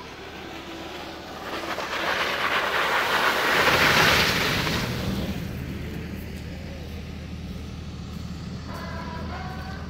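Off-road 4x4 driving through mud: engine and tyre noise swells to a loud rushing peak about four seconds in, then settles into a steady low engine rumble.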